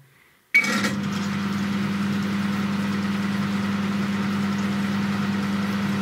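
1987 Elektrohelios HC776 microwave oven switching on with a sharp click about half a second in, then running with a steady hum and fan noise. The magnetron is disconnected, so the oven runs without heating.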